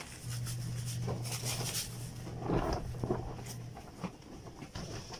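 Soft scraping and rustling of dough rounds being pressed into red granulated sugar in a foam tray, with a few light ticks, over a steady low hum that stops a little before the end.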